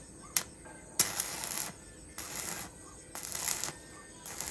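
Electric arc welding: several short bursts of crackling and sizzling, each about half a second long, as the arc is struck and broken over and over.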